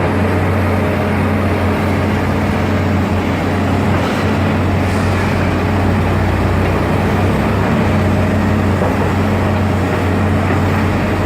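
Diesel engines of several excavators running steadily: a loud, even low hum with no clear strikes.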